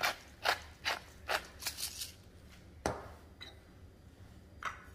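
Pepper mill grinding black peppercorns in quick twists, about two strokes a second, stopping about two seconds in. A single knock follows a moment later.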